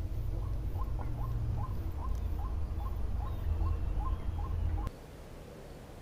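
White-breasted waterhen (ruak-ruak) calling: a series of short, rising notes at about three a second that stops about five seconds in, over a low rumble that cuts off at the same moment.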